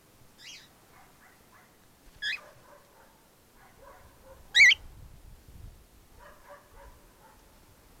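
Cockatiels calling close by: three short, shrill, wavering calls, the loudest about four and a half seconds in, with softer chirps between them.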